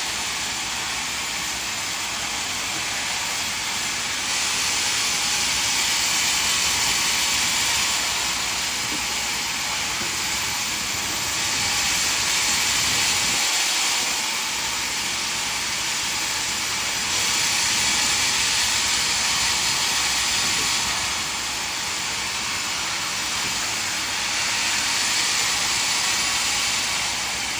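Band sawmill running, a steady hissing noise that swells louder for three or four seconds at a time, four times.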